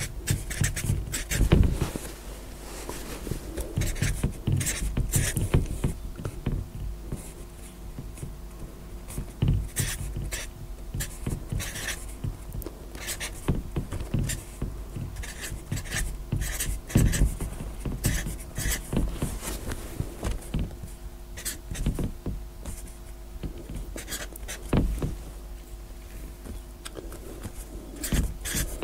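Black felt-tip marker writing on a large paper pad: an irregular run of short strokes, one digit after another, over a faint steady hum.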